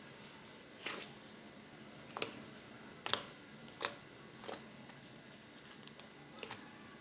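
Slime being squeezed and poked, giving a string of short, sharp clicks and pops at uneven intervals, roughly one a second, the loudest a little past the middle.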